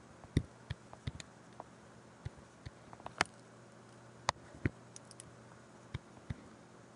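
Light, irregular clicks and taps of a pen stylus touching down on a tablet as numbers are handwritten, about a dozen or more spread over several seconds, over a faint steady hum.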